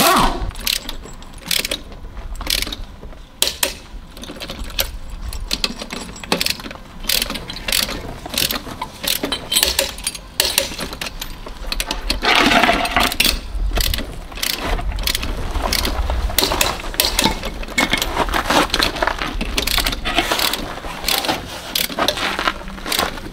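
Metal hand tools clinking and clicking irregularly, with ratchet-like clicks, as the lug nuts are worked during a car wheel change.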